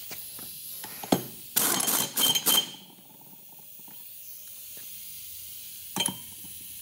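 Socket wrench with a 1 1/8 inch socket tightening the nut on a mower deck spindle pulley. A sharp metal click comes about a second in, then several short rasping bursts as the wrench is worked, and one more near the end.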